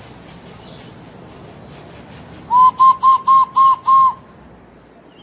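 Six short, loud whistled notes in quick, even succession, all on the same pitch, starting about halfway in and lasting about a second and a half.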